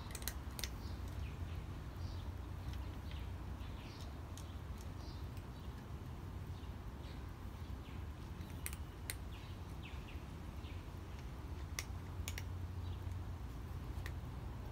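A cat eating from a dish, with a few sharp clicks of its chewing and teeth on the dish, a couple of them close together. Small birds chirp faintly over a low, steady background rumble.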